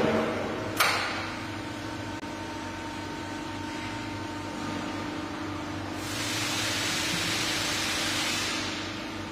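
Vacuum lift running with a steady machine hum. There is a sharp click about a second in, and a rush of air hisses for about two and a half seconds from around six seconds in, louder than the hum.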